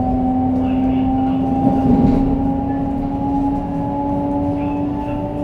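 Shinkansen 500 series traction motors, driven by a Toshiba GTO-VVVF inverter, whining in slowly rising tones as the train gathers speed, over steady wheel and running noise.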